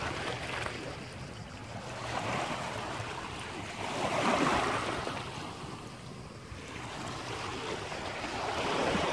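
Small waves lapping on a stony shore, the wash swelling and falling back, loudest about four seconds in and again near the end.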